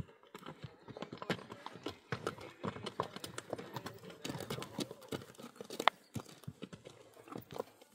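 Hooves clopping irregularly on hard ground: a string of uneven sharp knocks and clicks, with one louder knock near the end.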